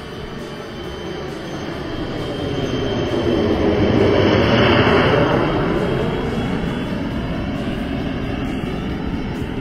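Swiwin 220 model jet turbine of a 1:4 scale Soko Galeb G2 RC jet flying past. It grows louder to a peak about four to five seconds in, then fades as its pitch drops.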